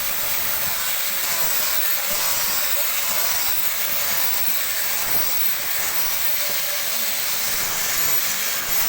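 An abrasive power tool running steadily with a continuous hissing, grinding noise, slight wavering in its pitch.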